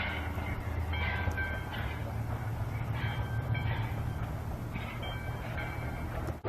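A train running with a steady low rumble, with short high-pitched squeals every second or two.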